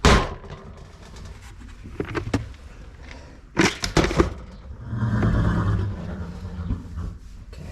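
Knocks and clatter of feed cans and buckets being handled while horses are given grain, with a sharp bang at the start and several more knocks about three and a half seconds in, then a rougher sound lasting about a second.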